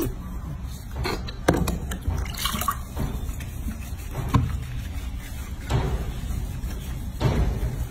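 Bathwater in a washbasin sloshing and dripping as hands scrub a baby monkey, a series of short splashes about every second or two.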